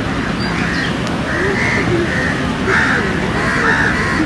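Birds calling over and over, about five short calls, above a steady rush of flowing floodwater.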